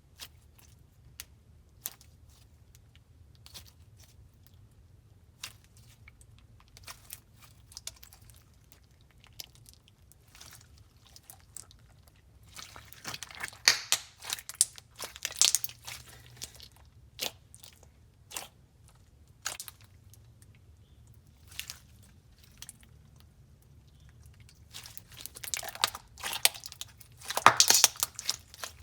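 Thick clear slime with glitter and plastic gummy bear charms mixed in, being squeezed, stretched and poked with the hands, giving sticky clicks, pops and crunchy crackles. The sounds are scattered at first and come thick and fast in two busier stretches, about halfway through and near the end.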